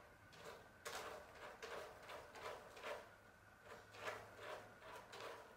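A kitten scratching in cat litter: a run of short, irregular scraping strokes, about two to three a second.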